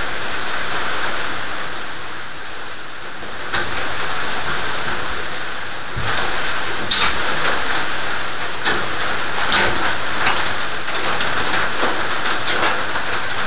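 Steady heavy rain falling on a roof, with a few sharp clicks and knocks scattered through it.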